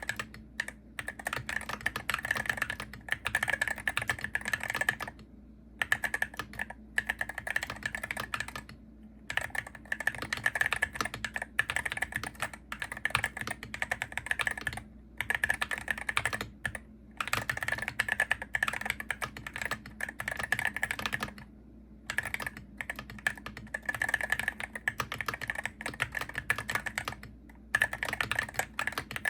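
Typing on a Hero68HE gaming keyboard: a fast, steady run of keystroke clicks, broken every few seconds by brief pauses.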